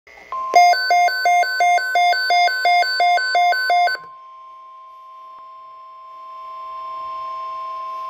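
Midland NOAA weather alert radio sounding its alert alarm, a loud rapid high-low warble of beeps about three times a second, cut off abruptly about four seconds in when the Weather/Snooze bar is pressed. The broadcast's steady NOAA weather radio alert tone then plays through the radio's speaker, growing louder near the end.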